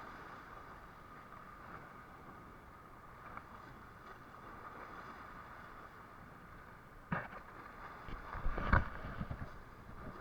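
Steady low hum and wind aboard a fishing boat. A sharp knock comes about seven seconds in, then a cluster of heavy thumps around eight to nine seconds, handling noise on the boat while a fish is hauled up.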